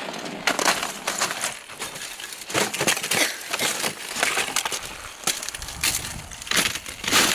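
Ice crunching and cracking: an irregular run of sharp crackles and glassy clinks, loudest near the end.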